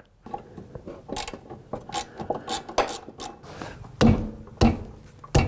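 Metal clicks and knocks of hand work on a car's front suspension, as the adjustable upper control arm is loosened and pushed in to take out too much negative camber. A run of light clicks comes first, then three louder knocks near the end.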